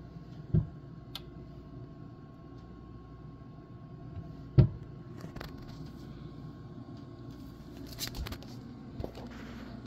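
Tabby cat purring close up, a steady low rumble. Two sharp knocks, about half a second in and near the middle, are louder than the purr, and a few lighter clicks come near the end.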